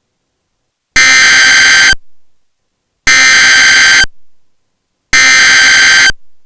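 Emergency Alert System digital data bursts: three harsh, screeching one-second bursts about a second apart, each fading out briefly at its end. It is the coded SAME header that opens an alert.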